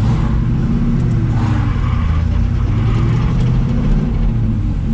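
1973 Camaro Z28's V8 with a lumpy cam running under way at low speed, heard from inside the cabin, its pitch rising and falling gently.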